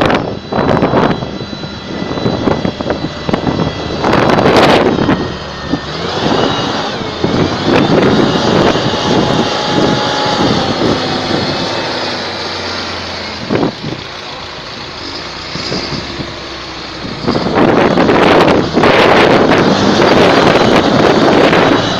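John Deere tractor's diesel engine running hard under heavy load in mud, surging louder for the last few seconds.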